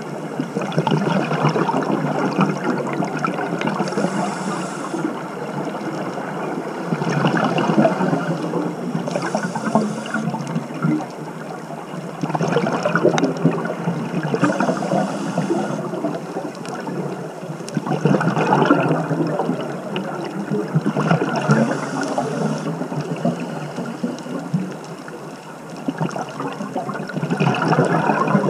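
Scuba diver breathing through a regulator underwater: the bubbles of each exhale rush and gurgle in bursts, about every four to six seconds, with a faint high hiss of the inhale now and then between them.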